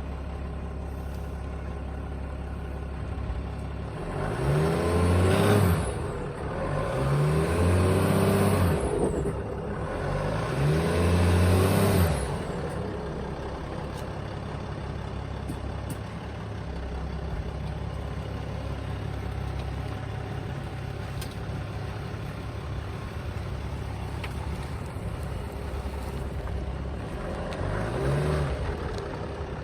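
Mercedes E320 CDI OM648 turbodiesel idling, then revved three times in quick succession and once more, more briefly, near the end. Each rev brings a high turbo whine that rises and then falls away as the revs drop. The owner asks whether the turbo flutter he hears is normal.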